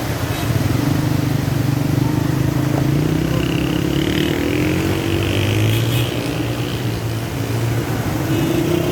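A motor vehicle's engine running, its pitch slowly rising and falling, over a steady rushing noise.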